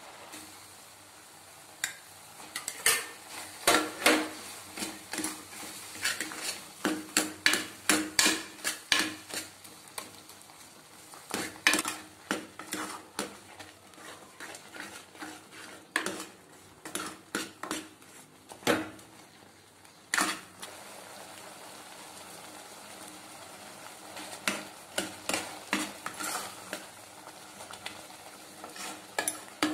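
A steel spoon stirring cooked chana dal in a metal pan, clinking and scraping against the pan in runs of quick, irregular strokes, with a pause of a few seconds a little after two-thirds of the way through.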